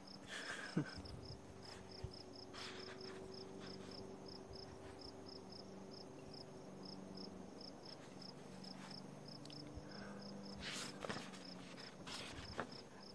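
A cricket chirping steadily in the background, about three chirps a second, with a few brief soft rustles from the book being handled.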